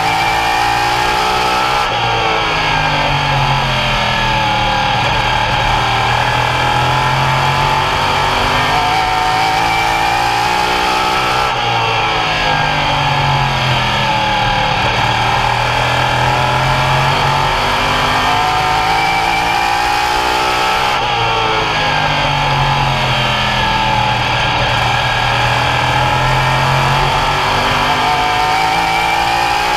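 Open Modified race car's V8 engine at racing speed around the oval. Its pitch falls and climbs again in a cycle that repeats about every nine to ten seconds, lifting off for the turns and accelerating out of them.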